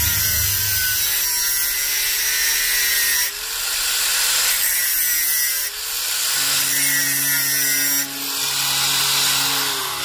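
Electric angle grinder running under load, its disc grinding into a yellow-painted metal plate with a harsh, loud screech over the motor's whine. The load eases briefly about three times as the disc is lifted and set back on the metal.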